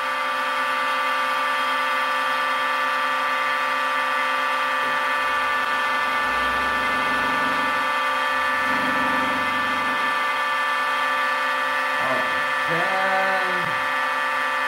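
A mini milling machine's 1 HP servo motor and toothed synchronous belt drive running its spindle at a steady speed, giving a steady whine of several tones. A low rumble rises in the middle for a few seconds.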